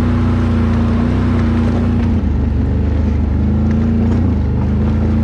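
Can-Am Outlander ATV's V-twin engine running steadily at trail-riding speed, the throttle easing off for a moment around the middle before picking up again.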